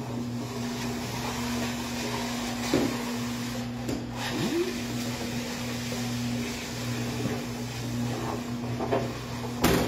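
Ballmatic high-hydration dough ball rounder running with a steady electric motor hum while it rolls an 850-gram dough ball up its spiral track, with a few faint knocks. A sharp click sounds near the end.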